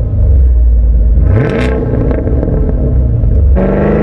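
Car engine running with a deep, steady exhaust drone, blipped once about a second and a half in. Near the end it cuts abruptly to a different engine note that revs up and back down.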